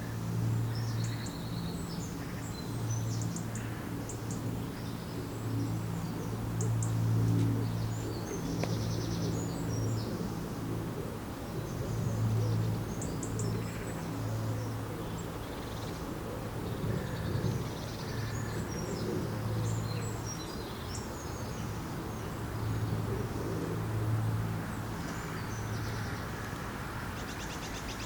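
Small birds chirping and calling now and then, over a steady low hum that swells and fades every few seconds.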